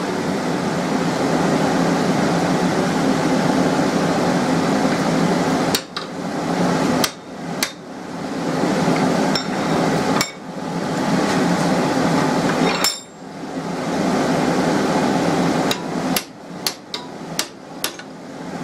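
Hand hammer blows on a tool held against red-hot steel clamped in a bench vise: about a dozen sharp metallic strikes, scattered at first, then a quick run of blows near the end. A steady rushing noise runs underneath.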